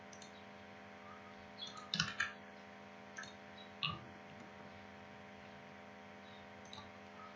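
Faint computer mouse clicks a second or two apart, the loudest a quick cluster of clicks about two seconds in, over a steady low electrical hum.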